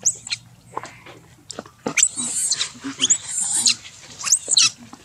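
Long-tailed macaque screaming: a sharp rising squeal at the start, then a string of shrill, harsh shrieks with quick upward sweeps from about two seconds in, ending just before the close.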